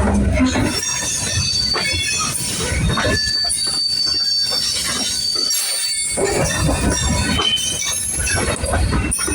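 Freight cars of a long manifest train rolling past, steel wheels squealing in scattered high, thin tones over a steady rumble, with irregular clanks from the wheels and cars.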